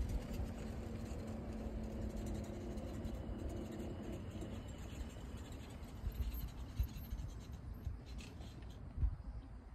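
Wind rumbling and scratching on the microphone, with a few low thumps. A golf cart's motor hums faintly in the first few seconds and fades out as it drives away.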